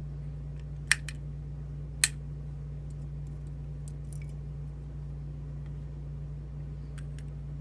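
Small metal clicks from tweezers picking up and setting down tiny lock pins: two sharp clicks about a second apart, then a few faint ticks, over a steady low electrical hum.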